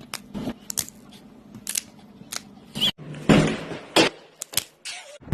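A run of short, sharp clicks and cracks, a dozen or so spread unevenly, with a brief louder burst a little past halfway and a sharp crack right after it: neck joints being cracked.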